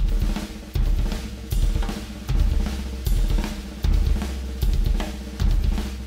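DW Oak Custom drum kit being played, a full groove of snare, cymbals and hi-hat with heavy low bass drum or tom hits landing in a steady pulse about every three-quarters of a second.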